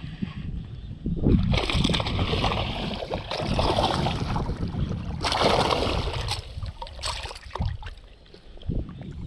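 Water splashing and sloshing in surges as a hooked bass is fought at the surface, over a low rumble of wind on the microphone.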